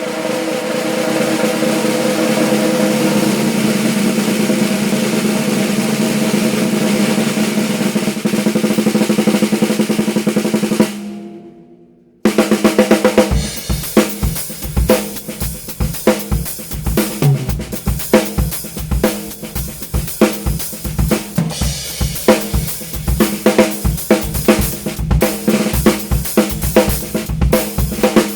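Thai wooden snare drum with a shell hollowed from a single piece of wood, played as a continuous roll with a ringing tone for about eleven seconds, then dying away. After a short gap a drum-kit beat starts, with bass drum and snare strokes in a steady rhythm.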